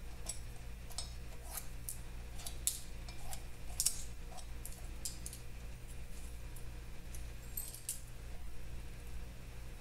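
Light metallic clicks and clinks, scattered irregularly and thinning out near the end, as small metal parts at the centre of the 1951 Vincent Rapide's original clutch are handled and worked loose by hand. A steady low hum runs underneath.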